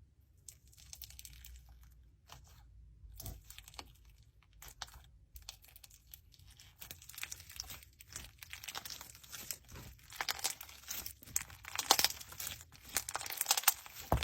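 Crunchy slime being squeezed and poked by hand, giving a run of small crackles and pops that grow denser and louder toward the end.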